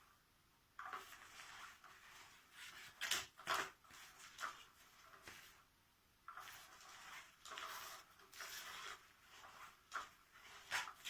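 Irregular rustling and scratching on the fabric cover of an undercover-mouse cat toy, in uneven bursts with a few sharper scrapes.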